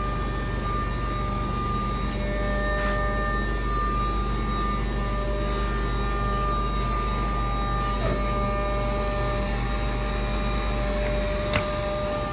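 Forklift running as it drives slowly with a slung load: a steady mechanical hum with a low drone and a few high whining tones. One sharp click sounds near the end.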